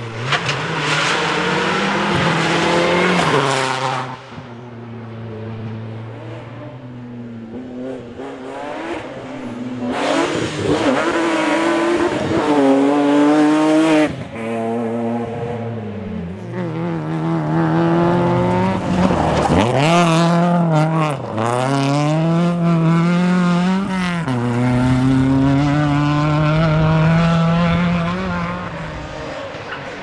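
Rally cars at full throttle, their engines revving up through the gears with a sharp drop in pitch at each shift. Several passes follow one after another.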